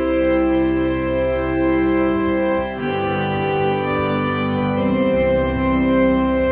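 Background music: an organ holding sustained chords that change twice.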